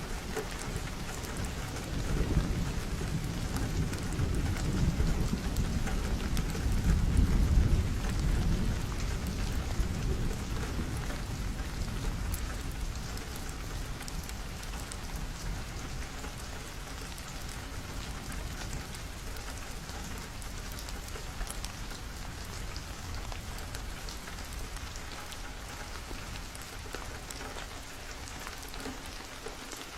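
Steady rain falling on a window, with a long low rumble of thunder that swells over the first ten seconds or so and then slowly dies away.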